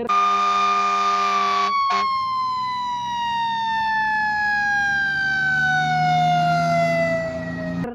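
Fire engine's mechanical siren, holding a high wail for about a second with a harsh buzz, then winding down slowly and steadily in pitch until it cuts off abruptly near the end.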